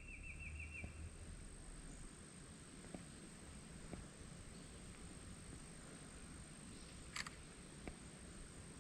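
Quiet outdoor ambience: a faint steady high tone over a low hiss, a short rapid trill in the first second, and a single sharp click about seven seconds in.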